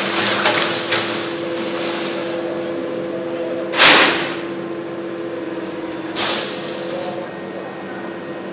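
CNC punch press running: a few last punch strikes at the start, then a steady machine hum with two louder sudden bursts of noise, about four and six seconds in.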